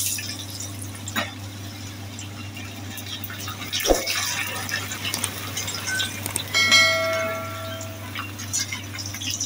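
Fish crackers frying in hot oil in a pan: a steady sizzle, with a couple of sharp knocks as a slotted spoon turns them. A brief ringing chime sounds about seven seconds in.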